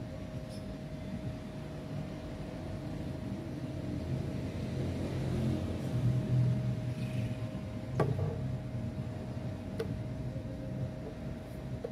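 Steady low mechanical hum with a constant whine from a running machine, and a sharp click about eight seconds in.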